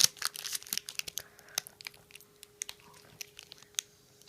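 A person biting and chewing a piece of Airheads taffy candy, with short wet mouth clicks that come thick in the first couple of seconds and then thin out.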